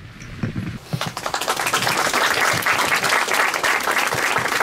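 Audience applauding, the clapping starting about a second in after the end of a speech and then holding steady.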